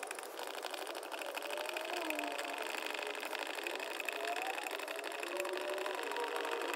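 A small motor running with a fast, even buzz, its pitch wavering up and down.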